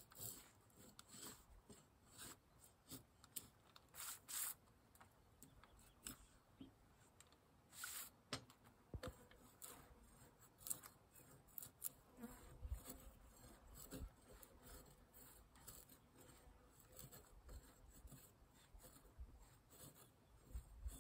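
Near silence, broken by scattered faint clicks and rustles.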